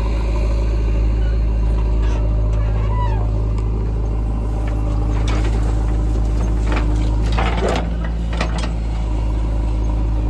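JCB 3DX backhoe loader's diesel engine running steadily under work, with a series of knocks and clatters from about five seconds in to eight and a half seconds in.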